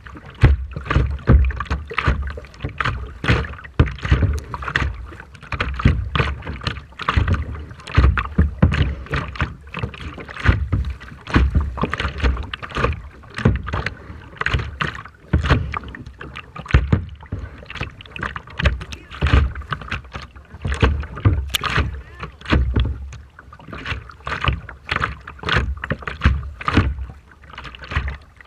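Rough sea water splashing and slapping in quick, irregular bursts, with strong wind buffeting the microphone in low rumbles.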